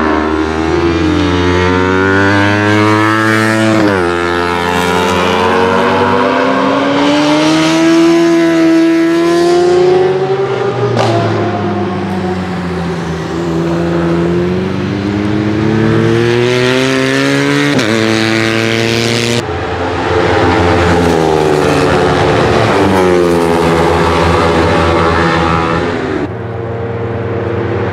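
Racing motorcycle engines accelerating hard through the gears. The pitch climbs and then drops sharply at each upshift, and rises and falls as the bikes pass.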